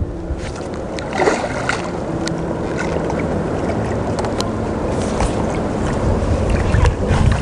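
Wind buffeting the microphone over choppy lake water, with a hooked carp splashing and swirling at the surface close to the bank and a few short sharp splashes or clicks.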